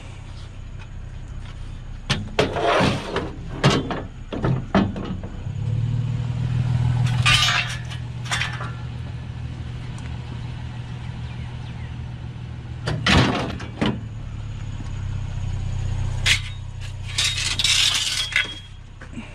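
Pickup truck engine running with a steady low hum, with scattered sharp knocks and clattering throughout.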